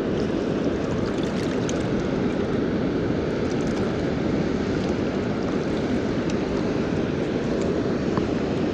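Steady rush of water pouring over a dam spillway, an even, unbroken noise.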